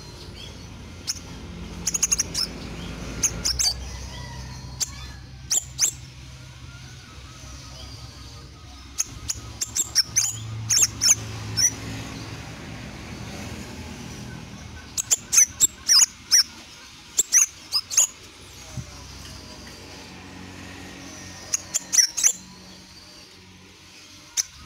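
Caged crimson sunbird (sepah raja) calling: sharp, very high chirps in quick clusters, repeated every few seconds.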